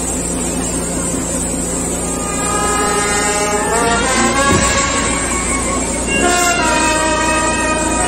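Brass band playing a slow processional march in long held notes, coming in about two seconds in over a steady street hum.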